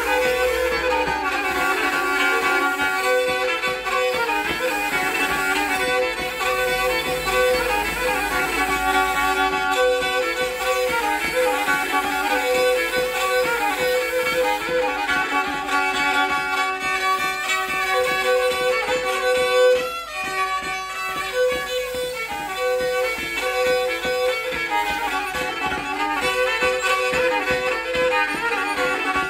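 Black Sea kemençe playing a fast instrumental folk tune, the bowed melody running over a note that keeps returning at the same pitch. Briefly softer about two-thirds of the way through.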